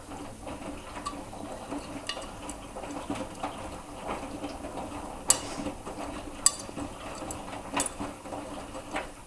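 Miele washing machine on the first rinse of a cottons 40 °C cycle: drum tumbling a full load of wet laundry, with water sloshing and several sharp clicks against the drum. The sound drops away at the very end.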